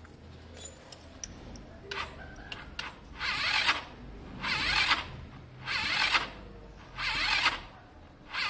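A freshly rebuilt 125cc Lexmoto Diablo scooter engine, with no exhaust fitted, being cranked on its electric starter. It turns over slowly, with five rushes of noise about every second and a quarter from about three seconds in, and a few clicks before them. The owner thinks the slow cranking may come from a battery that is a bit low.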